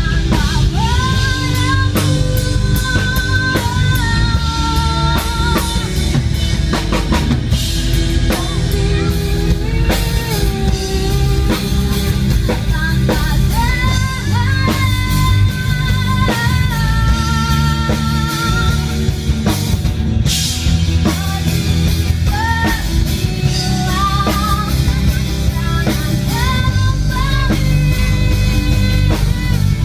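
Live rock band playing: a woman singing the melody, some held notes with vibrato, over a drum kit, electric bass and acoustic guitar.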